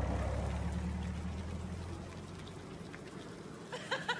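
A truck's low engine rumble fading away over about two seconds, leaving a soft steady hiss.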